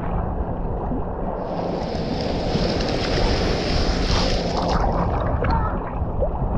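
Small waves breaking and washing in shallow sea water right at the microphone, swelling louder for a few seconds in the middle as a wave rolls over, then easing.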